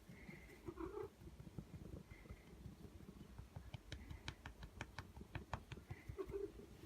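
Domestic cat purring close to the microphone, a quiet fast low rumble. A quick run of small clicks sounds from about four to five and a half seconds in.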